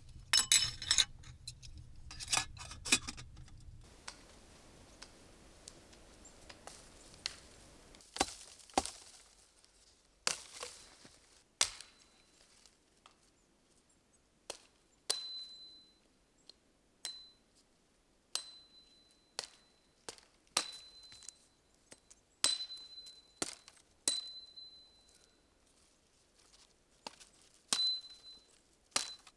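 Metal kitchenware clinking: irregular sharp taps and knocks, a cluster in the first few seconds, then single clinks every second or two, many of them leaving a brief high ring.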